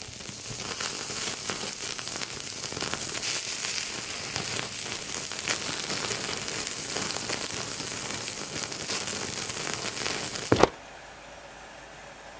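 Beef sizzling and crackling over a small tabletop charcoal grill, with fat flaring up in the flames: a steady sizzle dotted with small pops. Near the end a sharp knock, then the sound cuts off to quiet room tone.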